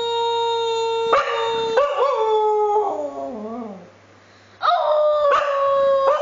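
Pet dog howling in long drawn-out howls, with a person howling along in the same way. The howls waver and fall about two to four seconds in, break off briefly, and start again about half a second later.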